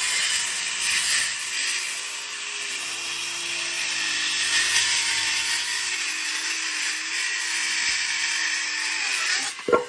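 SKIL 5-1/2-inch brushless cordless circular saw cutting through a 2x12 board, the blade running steadily through the wood with the motor pitch drifting slightly under load. The cut ends and the saw cuts off near the end.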